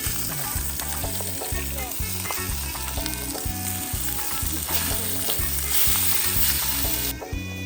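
Food sizzling hard in a frying pan over a hot portable burner, a dense steady sizzle that stops abruptly near the end. A steady low beat of background music runs underneath.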